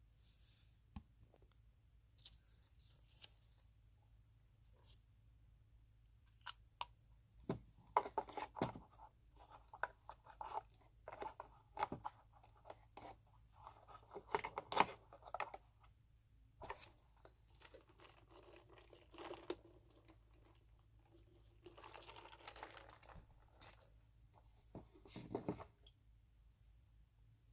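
Close-miked ASMR trigger sounds: irregular soft clicks, crackles and scratches, in clusters with short pauses between them.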